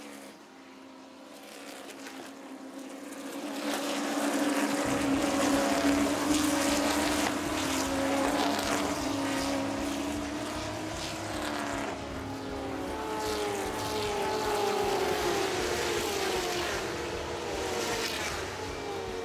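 Stock car racing engines at full throttle as the cars pass on the circuit, getting louder about four seconds in. Later the engine notes climb in pitch again and again as the cars accelerate through the gears.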